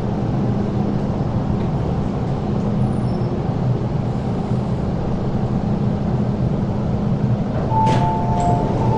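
MTR Island Line M-train pulling into the platform and slowing to a stop, with a steady low rumble. About eight seconds in there is a click, then a repeating two-tone door chime starts, signalling the doors are about to open.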